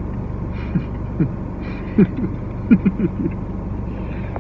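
Steady low hum of a vehicle, with a few short, falling low-pitched sounds about a second in and again two to three seconds in.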